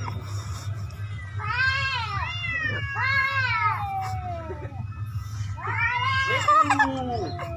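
Kitten meowing: three long calls, each rising and then falling in pitch, over a steady low hum.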